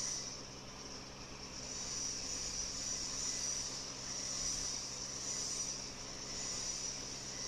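TIG welding arc on a pipe joint: a steady high hiss that swells and fades every second or two, over a low, even hum.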